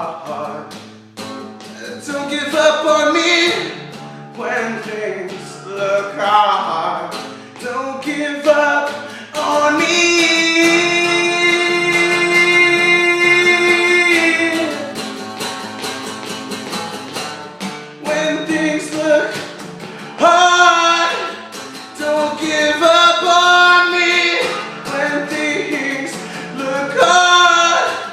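A song: a voice singing over guitar accompaniment, holding one long note from about ten to fourteen seconds in.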